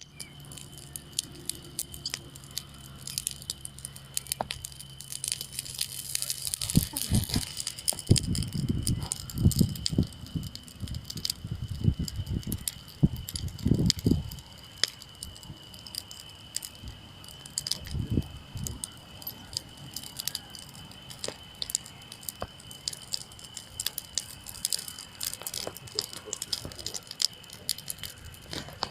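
Wood campfire burning, with frequent sharp crackles and snapping pops over a steady hiss. Louder low rushes of sound come and go between about seven and fifteen seconds in and again near eighteen seconds, and a faint steady high tone runs underneath.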